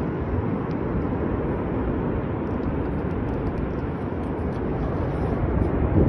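Forest fire burning on a wooded hillside: a steady low rushing with faint scattered crackles.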